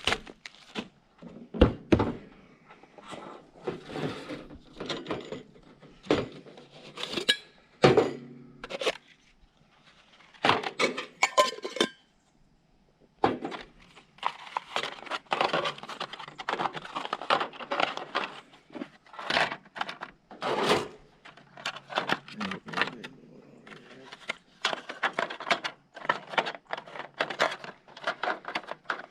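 Camp cookware and utensils being handled: irregular metal clinks, knocks and scrapes, with a short pause about twelve seconds in.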